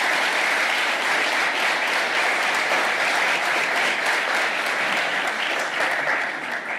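Audience applauding at the end of a talk, a steady mass of clapping that eases off slightly near the end.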